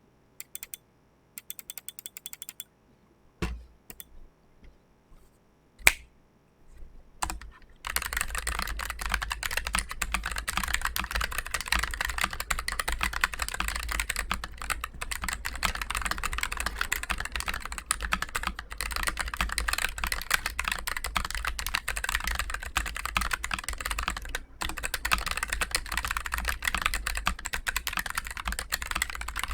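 Keychron K3 Pro low-profile mechanical keyboard with Gateron low-profile brown tactile switches being typed on. There are a few scattered key clicks and one quick run of clicks at first, then continuous fast typing from about eight seconds in.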